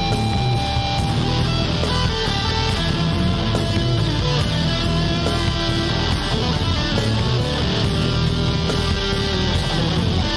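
Instrumental rock background music with guitar, playing steadily.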